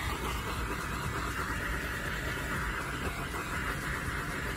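Handheld torch flame burning with a steady hiss as it is played over wet acrylic paint.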